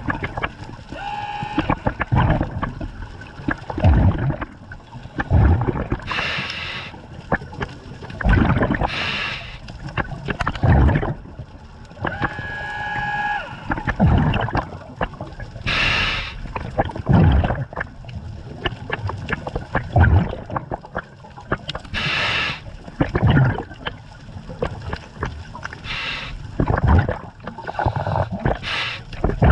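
Scuba diver breathing through a regulator underwater: a hiss on each inhale, then a gurgling rush of exhaled bubbles, repeating every few seconds. A couple of breaths carry a short humming tone.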